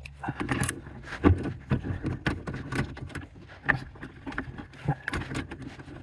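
Irregular clicks, knocks and metallic clinks of a hand tool working the screws and bolts of a car's steering column, loudest about a second in.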